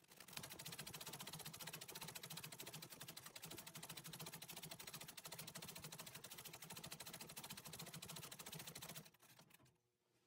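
Antique treadle sewing machine stitching fast and steadily as a rapid run of needle clicks while sewing embroidery fill stitches, then stopping abruptly near the end.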